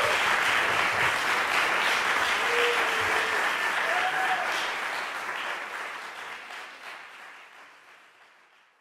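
Audience applauding in a recital hall, with a few short calls rising over it; the applause fades out over the last few seconds.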